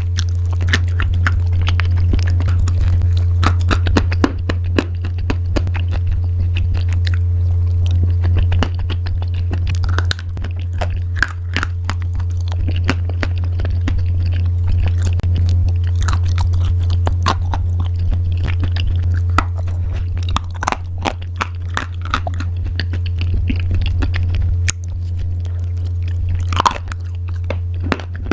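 Crunchy pasta being bitten and chewed close to the microphone: a continuous run of sharp, irregular crunches and crackles over a steady low hum.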